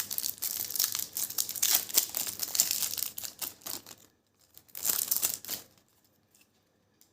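A thin transparent plastic trading-card pack being crinkled and torn open: a dense run of crackling for about four seconds, then one more short crinkle about a second later.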